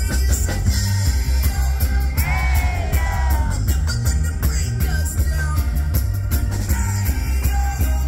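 Live reggae-rock band playing with drum kit, bass and electric guitar under a steady heavy bass line. A sung vocal phrase comes in about two seconds in and lasts a second or so.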